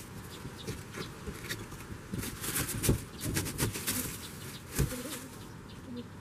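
Irregular crackling and clicking of plastic: twin-wall polycarbonate roofing sheets and their protective film flexing and crinkling under a person working from a wooden plank laid across them.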